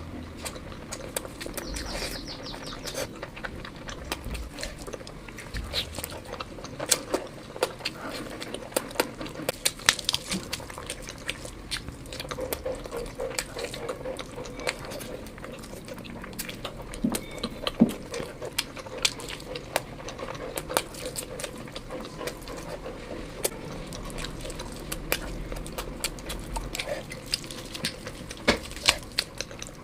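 Close-miked mukbang eating sounds: a person chewing and smacking wet, saucy food, with many irregular small mouth clicks and squelches throughout.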